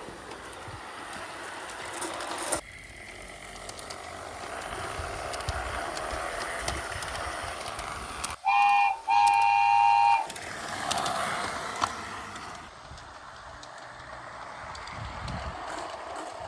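Marbles rolling along a marble run's tracks and tubes, with a train horn tooting twice about halfway through: a short toot, then a longer one that is the loudest sound.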